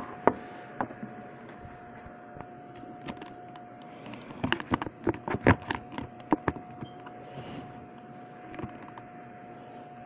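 Handling noise as the camera is moved around and set down: scattered light clicks and knocks, most of them bunched together about halfway through, over a faint steady high hum.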